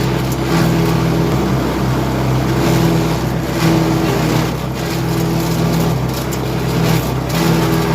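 Wood chipper running steadily, with irregular short crackling bursts on top of its steady drone.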